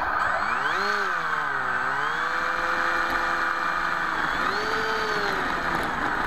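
Electric motor and pusher propeller of an FX61 flying wing, heard through its onboard camera. Its whine rises and falls twice with the throttle, about a second in and again near the end, as the plane taxis on its landing gear. A steady rushing hiss runs under it.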